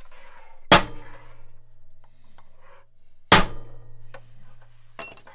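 A hammer strikes a steel punch set against a Wilton bullet vise twice, about two and a half seconds apart. Each blow gives a sharp, ringing metal clang as it works to drive out the vise's seized key pin. A couple of light taps follow near the end.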